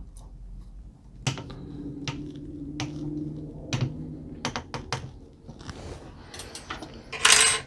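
Small, scattered clicks and taps of a metal hex key and small screws being handled against a 3D printer's plastic hotend carriage. A short, louder rustling noise comes near the end.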